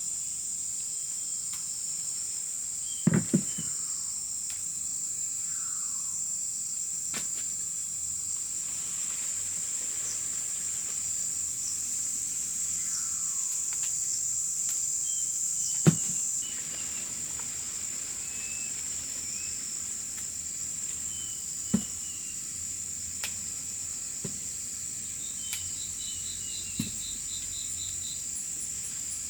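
Steady high-pitched drone of insects, with a few sharp knocks: a quick cluster about three seconds in, the loudest around halfway, and another a few seconds later.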